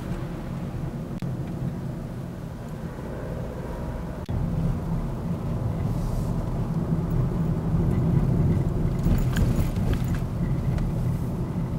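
Mazda Demio XD's 1.5-litre turbodiesel and its tyres heard from inside the cabin while driving: a steady low rumble that gets louder about four seconds in. A few faint ticks come near the end.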